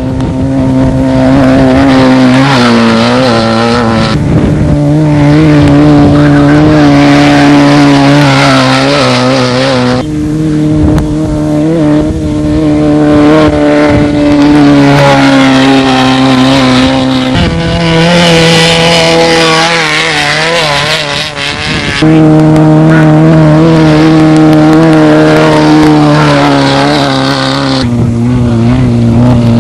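Class 9 off-road race cars' engines running loud at fairly steady revs, the pitch wavering and climbing in places. The sound changes abruptly several times as it jumps from one car or shot to the next.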